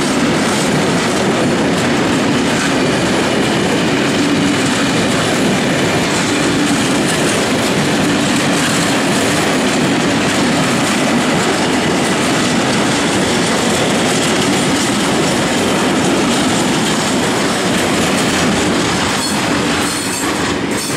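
A freight train of empty stake flat wagons rolling past close by, the steel wheels running over the rail joints and points in a continuous rumbling clatter. The sound eases slightly near the end as the last wagons go by.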